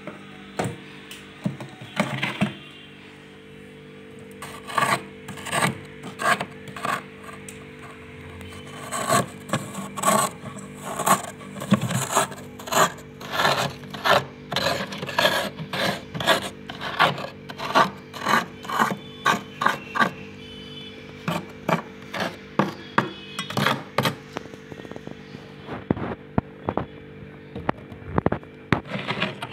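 A spoon scraping thick built-up frost from the inside of a freezer in short, rough strokes, about one or two a second. The strokes pause briefly a few seconds in and grow sparser near the end.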